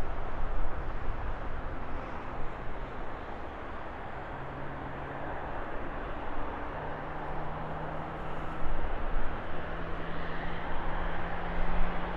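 Boeing 777 freighter's GE90 turbofan engines running, a dense rushing noise with a low hum that climbs slowly in pitch; a higher whine comes in near the end.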